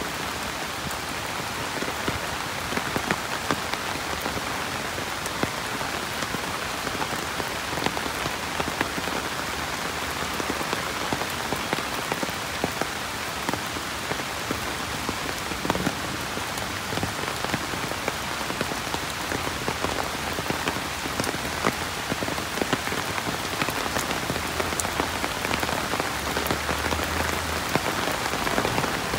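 Steady rainfall: a dense, even hiss of rain with many scattered sharp ticks of individual drops striking close by.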